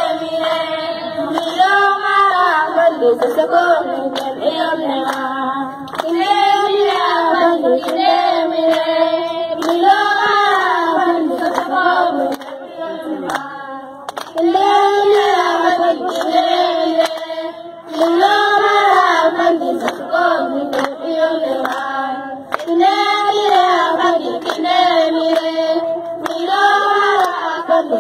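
A group of women singing a traditional Masalit (Masara) song together, with hand claps keeping the beat. The same sung phrase comes round about every four seconds.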